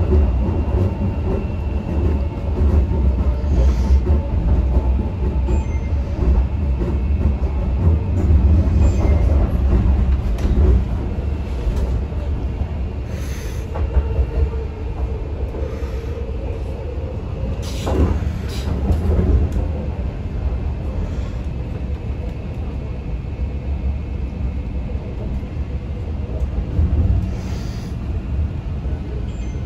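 Inside an MTR C-train electric metro car on the move: a steady rumble of wheels on rail with a faint whine and occasional knocks, the sharpest a little past the middle.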